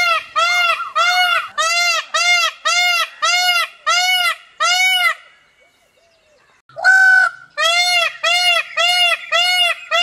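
Indian peafowl calling in a rapid series of short, arched calls, about two a second. The calls stop for about a second and a half after about five seconds, then come back with one longer, flat call before the quick series resumes.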